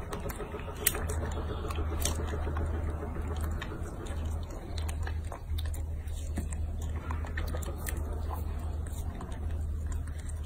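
Young macaque chewing and biting strawberries: scattered short clicks over a steady low hum.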